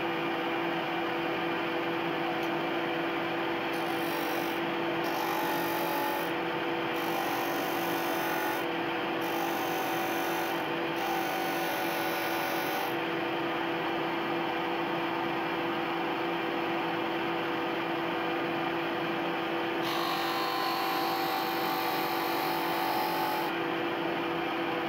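Ryobi RBDS4601G belt and disc sander running with a steady hum. Its 150 mm sanding disc grinds the end of a pine strip in about six passes lasting one to two seconds each, with a longer pass of about three and a half seconds near the end. The strip is set at a 45-degree angle on the miter gauge.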